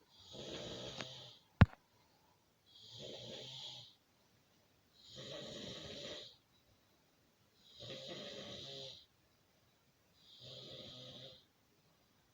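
A man snoring in his sleep, with goat-like snores. There are five of them, each about a second long, coming roughly every two and a half seconds. A single sharp click, the loudest sound, comes just after the first snore.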